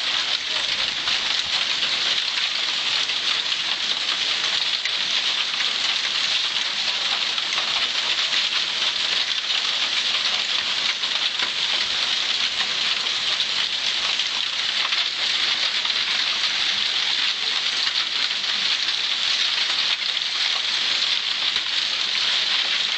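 Heavy rain pouring down steadily, a dense even hiss of drops with no break or thunder.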